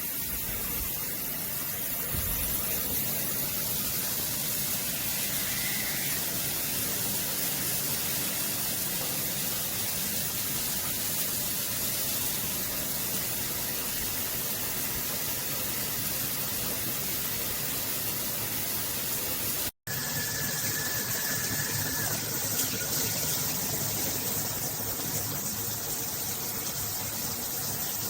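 Water spraying from a square stainless steel rainfall shower head, a steady hiss of falling water. The sound drops out once, very briefly, about twenty seconds in.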